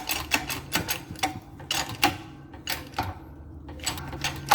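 Shop press forcing a worn rubber-and-metal bushing out of a car's front lower control arm: sharp metallic clicks and knocks, a few a second, over a low steady hum.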